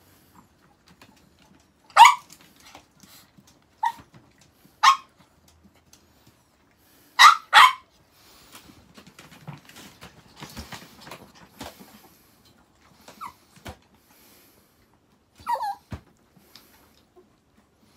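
Chihuahua barking in short, sharp yaps, about six in all, two of them close together near the middle. Softer scuffling and rustling comes between the barks.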